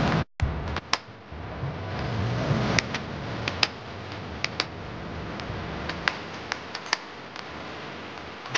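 Scattered light clicks and taps, a dozen or so at uneven intervals, over a low steady room background, after a brief dropout near the start.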